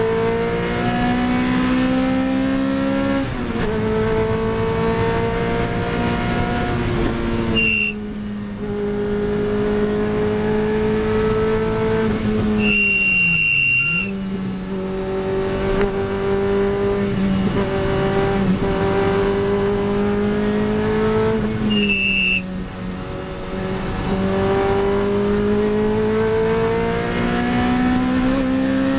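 Lotus Elise 111R's 1.8-litre Toyota four-cylinder, heard from inside the cockpit at full throttle. The revs climb steadily and drop at upshifts about three, eight and twenty-two seconds in. Around thirteen seconds they fall away as the driver lifts. A short high-pitched tone sounds at the shifts near eight and twenty-two seconds, and for about a second during the lift.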